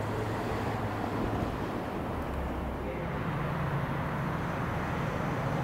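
Distant Class 70 diesel freight locomotive, a GE PowerHaul V16, approaching with its engine giving a steady low drone over a general railway background rumble; the low drone sets in about three seconds in.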